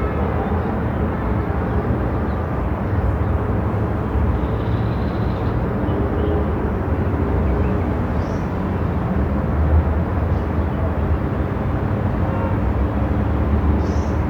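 Moving car's steady road and engine drone, an even low rumble with a faint hum on top.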